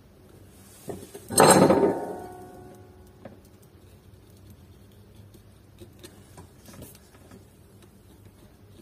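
A brief metallic clatter about a second and a half in that rings for about a second, as a soldering iron is taken up, then faint scattered ticks while the iron works along the solder joints of the display's flex cable.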